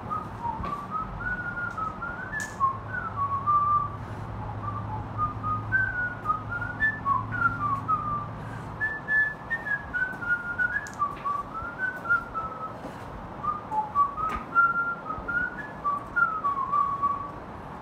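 A person whistling a tune unaccompanied: one clear melody line of short stepping notes that stops just before the end.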